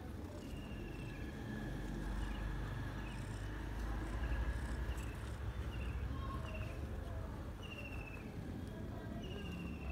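Steady low rumble in the background, with a series of short high chirps every second or two.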